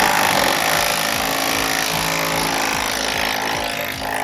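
Impact wrench hammering steadily on a rear shock absorber mounting bolt, starting abruptly and running without a break.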